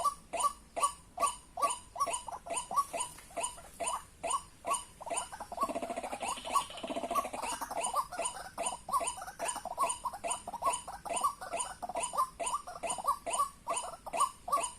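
White-breasted waterhen (ruak-ruak) calling: a fast, even run of short repeated notes, about three a second. About halfway through, a rougher, noisier call overlaps them for a second or two.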